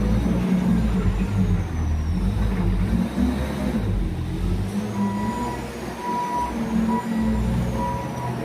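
Diesel engine of a JCB BS6 skid steer loader running, a steady low rumble that rises and falls slightly. From about five seconds in, a high beeping tone sounds on and off over it.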